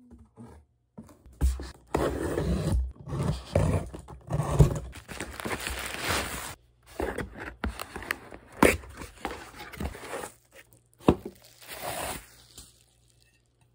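Plastic bubble wrap being handled and unwrapped by hand: irregular bursts of crinkling and rustling, with a few sharper crackles in the second half.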